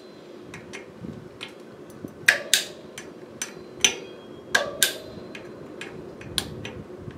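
Sharp metallic clicks from a hand driver working the bolts of a Shimano Ice-Tech disc brake rotor as they are tightened to torque, several coming in quick pairs with softer ticks between.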